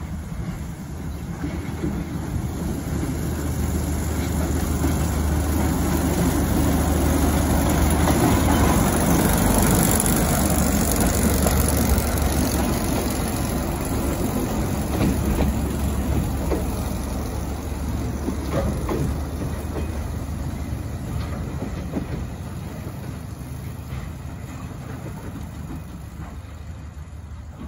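Small diesel locomotive running as it hauls a carriage past, with a steady low engine hum. It grows louder to a peak about ten seconds in and then fades as it moves away, with a few wheel clicks over the rail joints as it passes.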